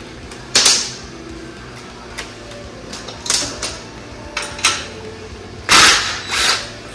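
Cordless power driver running in short bursts, six or so, as it backs out the bolts holding the fuel pump mounting bracket on a Ducar 212 engine; the longest burst comes near the end.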